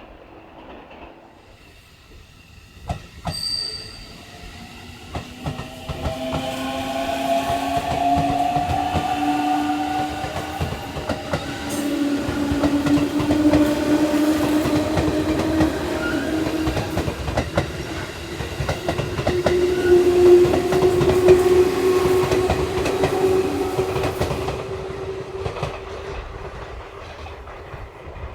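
Electric train accelerating, its traction motors whining in a tone that rises steadily in pitch over about twenty seconds, with wheels clattering over the rail joints; the sound fades near the end.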